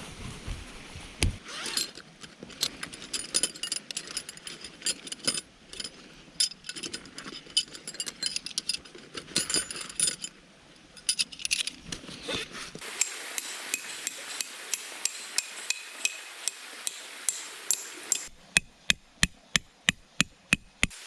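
Scattered metal clinks and taps, then a steady run of sharp, ringing metal strikes about three a second, as of tent pegs being hammered into the ground.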